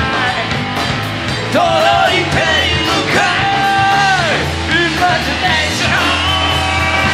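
Live rock band playing: electric guitars, bass and a Yamaha drum kit. A singer holds long notes into the microphone, twice letting the held note fall off at the end.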